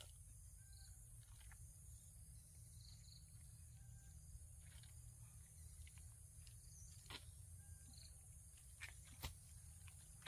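Near silence: a faint low rumble with a few soft clicks and small faint chirps, the sharpest click about nine seconds in.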